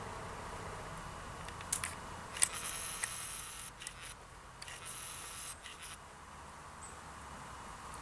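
Scratching and rustling with a few sharp clicks, from about two seconds in until about six seconds in: a woodpecker tugging old moss and wool nesting material out of a wooden nest box, its bill and claws scraping the wood.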